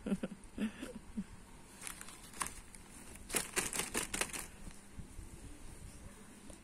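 Clear plastic zip-lock bag of spiral hair curlers crinkling as it is handled and pressed, in scattered crackles with a denser cluster about three to four seconds in.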